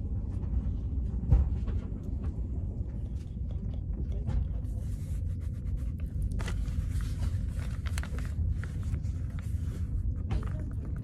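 Passenger train running, a steady low rumble heard from inside the carriage. Light clicks run over it, with a louder knock about a second in; from about four and a half seconds a faint hiss with quick ticks joins in.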